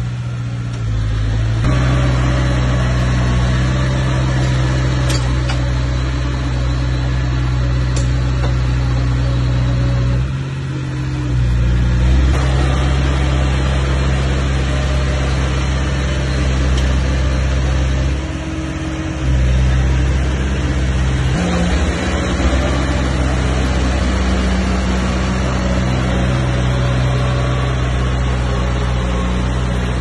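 Heavy diesel engine of a bulldozer running under load. Its pitch steps down and back up several times, with brief dips about ten and about eighteen seconds in.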